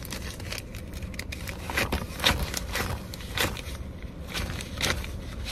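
Handling noise from a handheld camera: scattered clicks and rustles as it is shifted about, over the low steady rumble of the car.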